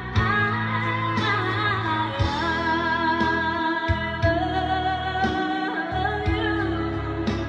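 A woman singing a love song into a microphone over an instrumental backing, holding long notes on the words "I love you", with a beat thudding about once a second.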